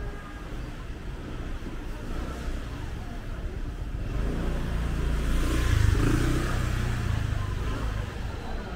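A motor vehicle's engine passing close by, swelling from about halfway through to a peak near six seconds and then fading, over a steady hum of traffic and market background.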